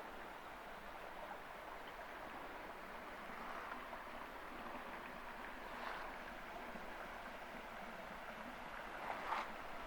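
Steady rush of running water from a stream or waterfall. A brief, louder noise comes near the end.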